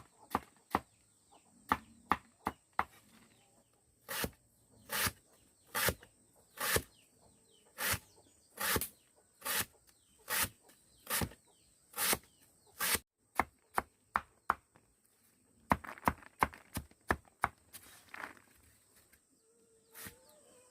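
Repeated chopping: a blade striking a hard surface in sharp blows, settling into a steady rhythm of about one blow a second, then a quicker flurry of blows later on.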